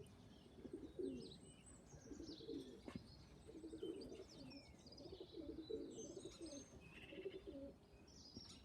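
Domestic pigeons cooing faintly, a low phrase repeated about once a second, with small birds chirping and twittering high above them.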